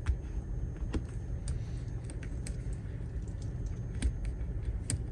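A few light, irregular clicks and taps of small metal parts being handled, as a flange bearing is set onto a steering post of an RC truck's front end. A low steady hum sits under the clicks.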